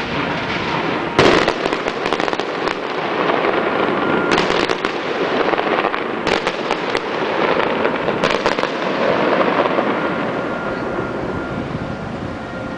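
Fireworks display: sharp bangs of shells bursting about a second in, around two and two and a half seconds, near four and a half seconds, around six to seven seconds and near eight and a half seconds, over a continuous dense crackle and rumble.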